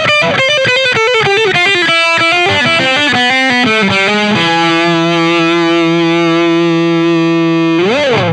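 Distorted electric guitar music: a fast run of notes falling in pitch, then one long held note that bends up in pitch near the end and cuts off.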